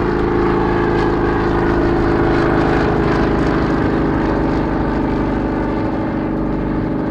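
Bristol Sycamore helicopter running steadily, its Alvis Leonides radial piston engine humming under a fast low beat from the rotor, swelling slightly a couple of seconds in.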